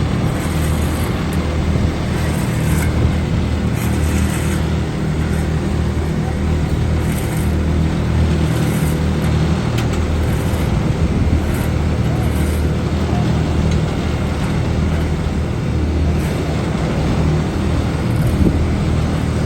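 Heavy road-paving machinery engines running steadily, a continuous low drone with mechanical noise over it.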